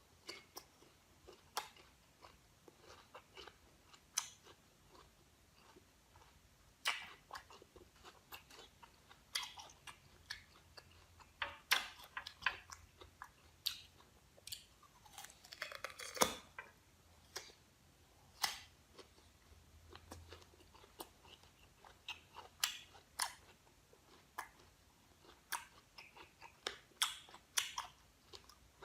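Crisp guava being bitten and chewed close to the microphone: irregular crunches and mouth clicks, with one brief falling squeak about halfway through.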